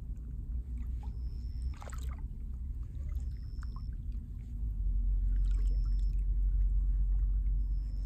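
Feet squelching and sloshing through deep wet mud, the clearest squelch about two seconds in, over a steady low rumble that grows louder past the middle.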